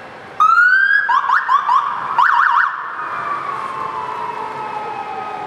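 Police motorcycle siren sounded in short bursts: a rising wail about half a second in, a run of quick yelping sweeps, then a slow falling tone as it winds down.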